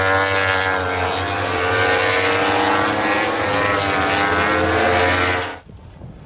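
MotoGP racing motorcycles' four-cylinder engines running hard at high revs as the bikes pass trackside, a loud, dense note held at a nearly steady pitch. It cuts off abruptly about five and a half seconds in.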